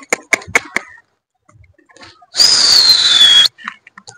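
Pigeons' wings clapping rapidly as the birds take off, dying away within the first second. About two seconds in, a person's loud whistle about a second long, falling slightly in pitch, as the keeper drives the released flock up.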